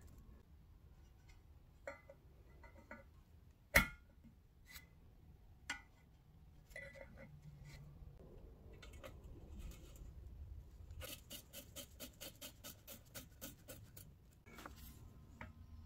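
Small metal clinks and taps from fitting parts of a kerosene pressure stove: a sharp clink about four seconds in, scattered lighter taps, then a quick run of small clicks, about five a second, for some three seconds near the end.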